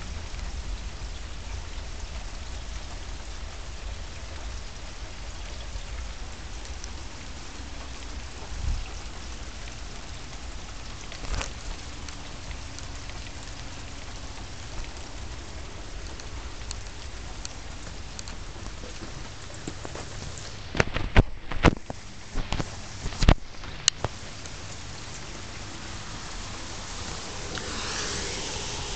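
Steady rain falling, heard as an even hiss. Several sharp knocks come close together about two-thirds of the way through.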